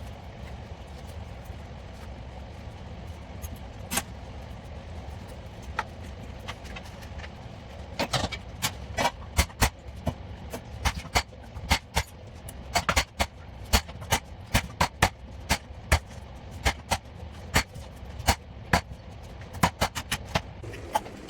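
A steady low hum, joined about eight seconds in by irregular sharp clicks and taps, often several a second.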